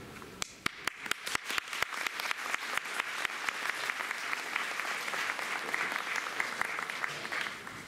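Audience applauding: a few separate claps, quickly thickening into steady applause that stops near the end.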